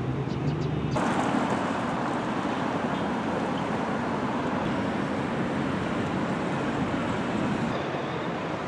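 Steady city street traffic noise with some wind on the microphone, growing louder abruptly about a second in.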